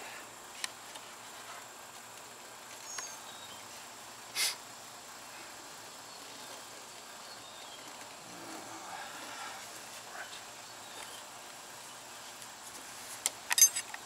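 Hand tools clicking against a scooter wheel during a manual tire change: a few isolated clicks, a short scrape about four seconds in, and a quick run of sharp metal clicks near the end, over a quiet background with a faint steady high tone.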